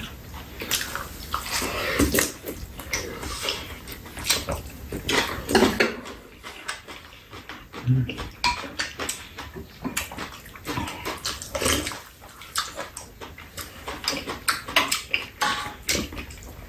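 Close-up eating sounds: wet chewing and lip-smacking on stir-fried cabbage, with chopsticks and spoons clicking against metal pans and bowls in an irregular stream.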